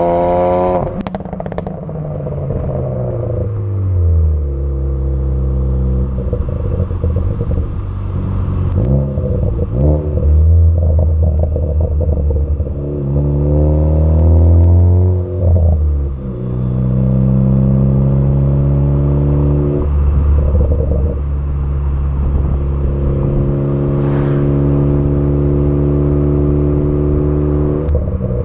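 Tuned turbocharged Ford Focus ST exhaust being revved and let fall several times. Its note drops from high revs about a second in, with a burst of crackles and pops on the overrun. More blips follow, with crackling as the revs fall, and between them the engine is held at a steady speed for several seconds at a time.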